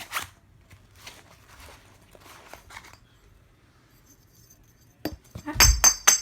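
Metal paintball barrel inserts being handled, with light rustling and small knocks, then about five seconds in a quick run of clinking as the pieces knock together and ring.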